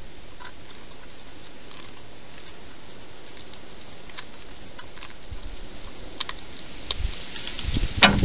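Hedgehogs eating from food dishes: scattered faint crunching clicks over a steady hiss, with one sharper, louder click near the end.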